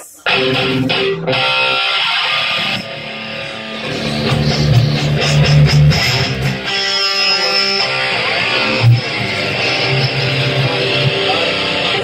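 Live rock band playing loudly on electric guitars and bass. It comes in abruptly just after the start and keeps going at full volume through the club PA during a soundcheck.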